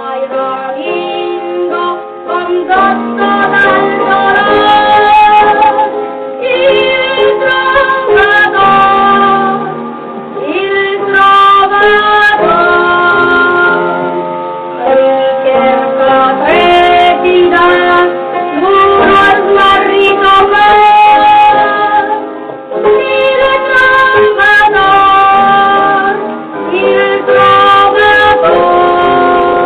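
A chorus of children's voices singing a song to instrumental accompaniment, in phrases with short breaks between them.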